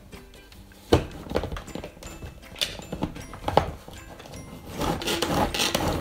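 Manual pull-cord food chopper: a few plastic knocks as the lid is fitted, then, near the end, the cord pulled over and over, its blades spinning through chunks of carrot, sweet potato and onion in quick repeated strokes. Faint background music underneath.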